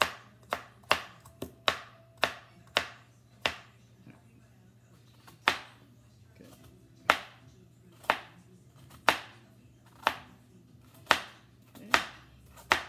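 Kitchen knife chopping carrots into rounds on a cutting board, each stroke a sharp knock of the blade on the board. The knocks come quickly for the first three seconds or so, stop for about two seconds, then go on at about one a second.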